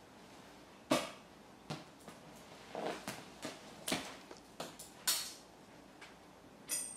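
A cat rolling and scrambling on a leather sofa: a string of short bumps and rubs of paws and body on the leather, with a brief high squeak near the end.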